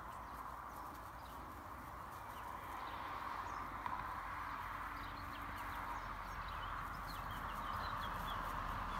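Outdoor ambience around foraging hens: a steady background hiss with scattered faint, short high-pitched chirps.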